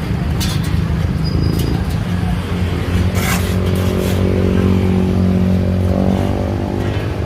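A heavy engine running loudly and steadily. It picks up in pitch and strength about three seconds in, then drops back about a second before the end.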